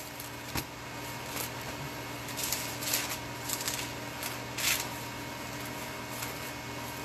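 Thin Bible pages being leafed through by hand, several soft paper rustles as the pages turn, over a steady low room hum.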